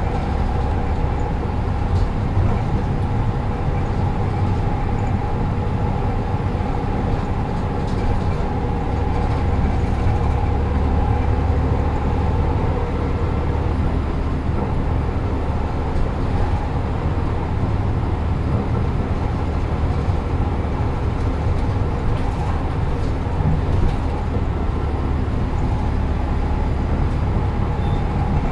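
City bus running along the road, heard from inside the passenger cabin: a steady low engine and road rumble with a faint constant whine.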